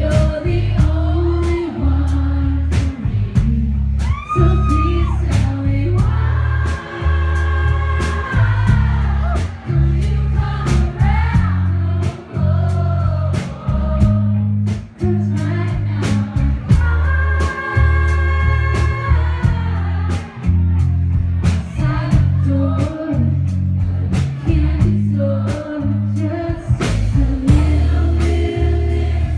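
Female vocalist singing a pop-rock song live with acoustic guitar and band backing, a regular drum beat over a heavy bass.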